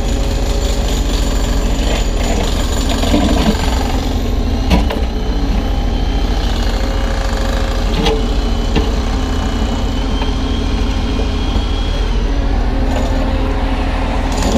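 Kubota U35-3 mini excavator's diesel engine running steadily under load as the bucket drags broken concrete, with a few sharp knocks of concrete and a thin high whine for several seconds in the middle.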